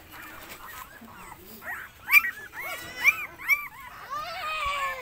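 Young puppies whimpering: a run of short, high squeaky whines with one longer whine near the end.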